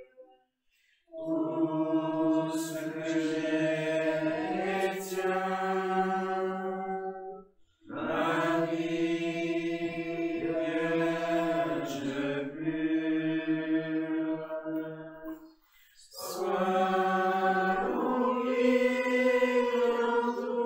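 Slow sung religious chant: voices holding long, steady notes in three drawn-out phrases, each several seconds long, with brief pauses between them and the pitch shifting only a few times within each phrase.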